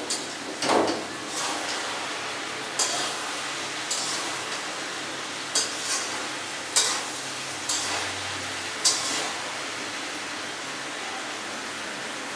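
A spoon scraping and clinking against a metal karahi as vegetables are stirred, in irregular strokes a second or so apart, over a steady hiss.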